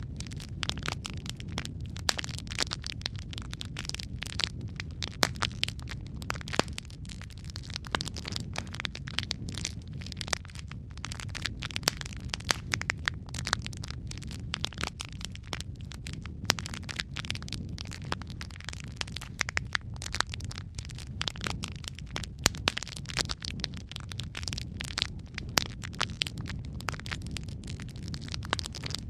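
Wood fire burning in a fireplace: logs crackling and popping in quick, irregular sharp snaps over a steady low rumble of the flames.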